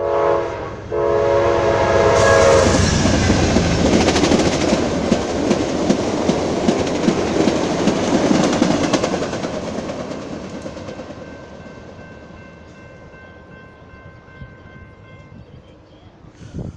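Amtrak Cascades Talgo passenger train sounding its horn for the crossing, the horn cutting off about two and a half seconds in. The train then passes close by at speed: a loud rush with rapid wheel clicks over the rail joints, fading away over the last several seconds.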